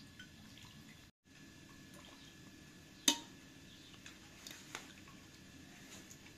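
Faint liquid sounds of cooking, with one sharp clink about three seconds in and a smaller one a little later.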